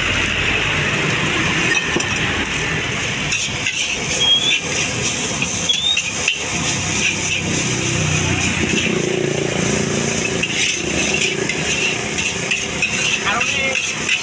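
Fried rice being stir-fried in a steel wok over a gas burner: a metal spatula scrapes and knocks irregularly against the wok over a steady sizzle and the hiss of the burner.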